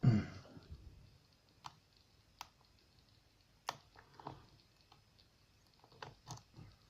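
Sparse, light metallic clicks of a lock pick probing and setting the pin stacks inside a euro cylinder lock, about half a dozen irregular ticks. A brief low sound comes right at the start.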